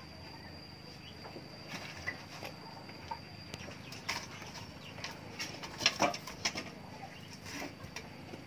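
A small wood fire being lit under a metal trivet: scattered snaps, clicks and knocks of kindling, thickest and loudest about four to six and a half seconds in. A steady high whine sits underneath and fades about three and a half seconds in.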